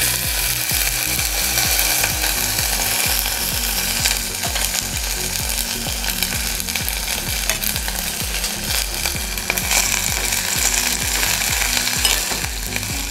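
Shredded cabbage frying in hot oil in a stainless steel pan, a steady sizzle with a metal ladle scraping and clattering against the pan as it is stirred.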